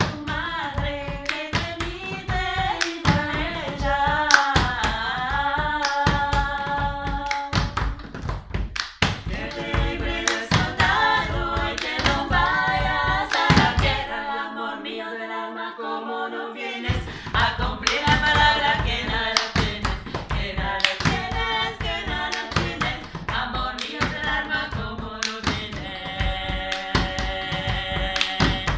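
Three women singing a polyphonic song a cappella, accompanied by a steady rhythm of hands slapping and tapping on a wooden board. The hand beats stop for a few seconds around the middle while the singing carries on, then resume.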